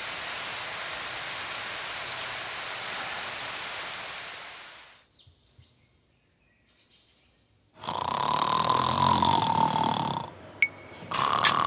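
Steady rain falling, fading out about four seconds in. After a near-silent gap, boys asleep in a dormitory snore loudly in two long bouts, the first starting about eight seconds in, with a wavering whistle in the snore.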